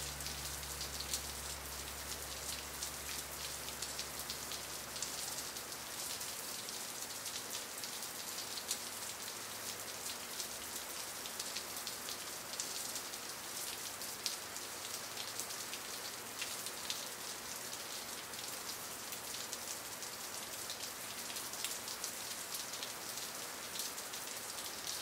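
Steady rain falling on a surface, an even hiss with many small drop ticks. A low hum fades out over the first six seconds.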